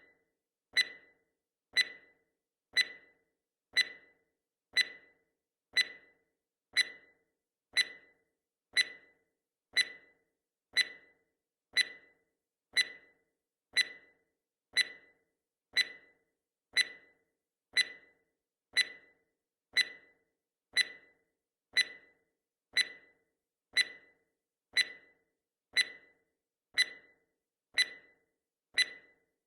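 Countdown timer's ticking sound effect: one short, sharp tick each second, evenly spaced, each dying away quickly.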